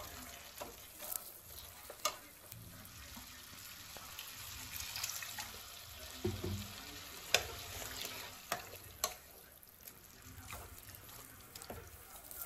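Pan of kofta curry gravy simmering on the stove: a faint steady sizzle with a few sharp ticks scattered through it.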